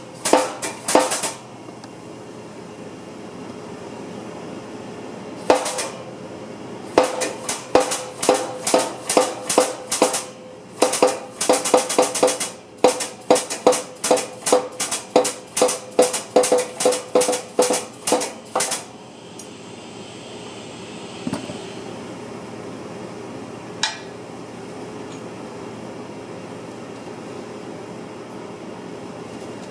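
Hammer blows on steel, struck about two a second in a long run, each with a short metallic ring, with a few single strikes before and after; a steady hum underneath. Typical of knocking apart a car's rear hub assembly to replace its bearing.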